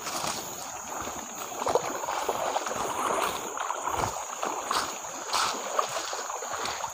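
Footsteps wading through a shallow stream, water sloshing and splashing around the legs in uneven step-by-step surges.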